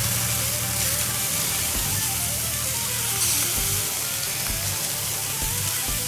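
Bacon-wrapped meatballs sizzling steadily on a charcoal kettle grill's grate over direct heat, with background music underneath.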